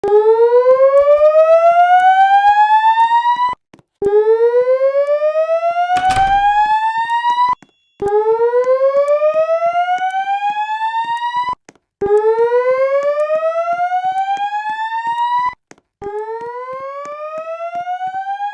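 Fire alarm voice-evacuation system sounding its slow-whoop evacuation tone during a fire alarm test: a loud pulsing tone that sweeps upward in pitch for about three and a half seconds, breaks off and starts again low, repeating every four seconds. A brief rustle is heard about six seconds in.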